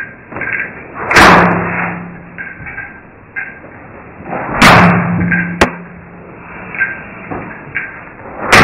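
Three loud, heavy slams with a low ringing hum dying away after each, about a second in, midway and at the very end, with a single sharp click shortly after the second.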